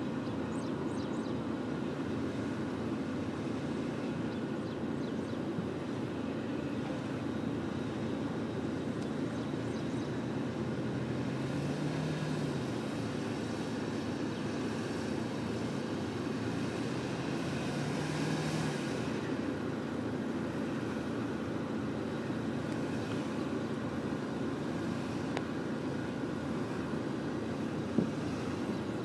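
Vehicle engine running steadily, rising and falling in pitch twice as it revs, with a single sharp click near the end.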